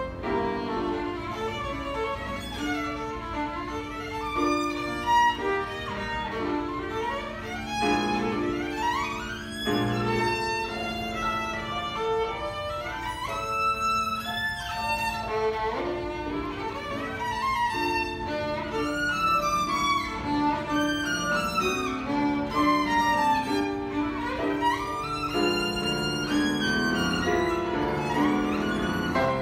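Solo violin playing a fast, busy passage with quick rising runs, accompanied by a Kawai grand piano.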